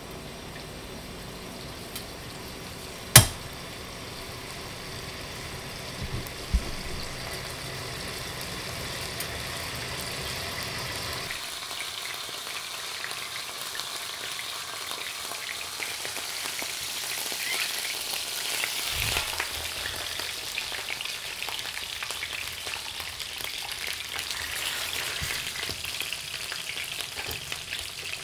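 Salmon head frying in a pan, a steady sizzle that grows louder through the first twenty seconds and then holds. A single sharp click about three seconds in.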